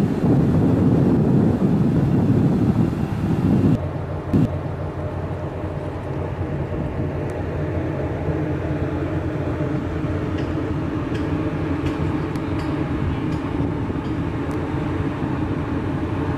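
Wind buffeting the microphone over water and boat noise, then an abrupt change about four seconds in to a steady low mechanical drone of ship machinery, with a few faint ticks.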